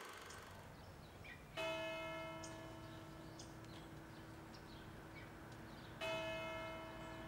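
A large bell tolls twice, about four and a half seconds apart, each stroke ringing on and fading slowly. Faint short high chirps sound in the background.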